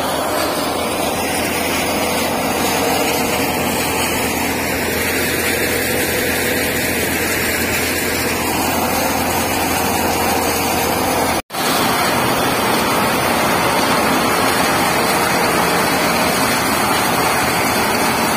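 Tractor-driven Santosh soybean thresher (haler) running under load as soybean plants are fed into its hopper: a steady, loud, dense mechanical noise from the threshing drum and fan over the tractor engine's low hum. The sound breaks off for an instant about eleven seconds in.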